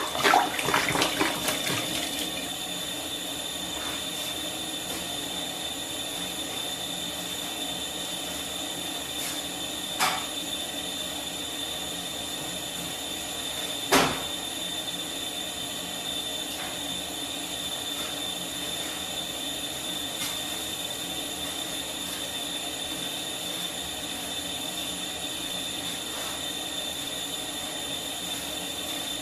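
Liquid splashing into a pot at the start, then a steady hiss with a high whine from the stove heating the pot of beef and water. Two sharp knocks come about ten and fourteen seconds in.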